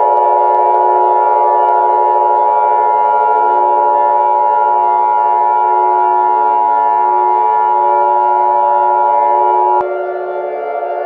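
Emergency Alert System attention signal: the steady two-tone alert (853 and 960 Hz) sounding for about ten seconds, then cutting off sharply. A steady, slightly wavering drone of lower tones continues under it and after it.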